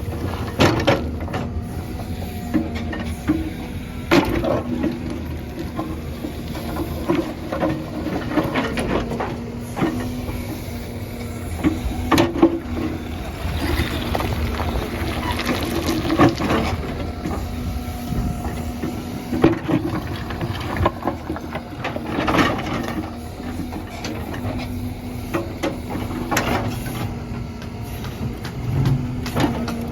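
Backhoe loader's diesel engine running steadily under work, with repeated knocks and clatter of stone in and against the steel bucket.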